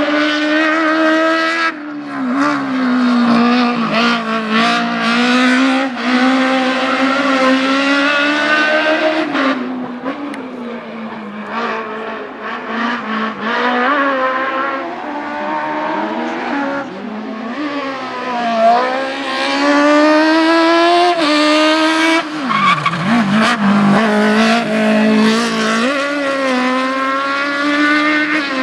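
Fiat 127 race car's four-cylinder engine running hard, its pitch climbing under acceleration and dropping back again and again through gear changes and lifts.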